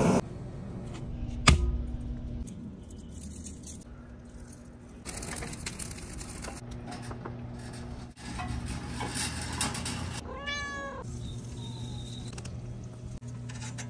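Domestic cat meowing once, one drawn-out meow about ten seconds in. Earlier there is a single sharp knock about a second and a half in, and stretches of hissing noise.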